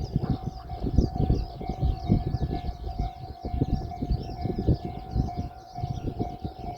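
Japanese level-crossing warning bell ringing steadily, over an uneven low rumble with knocks.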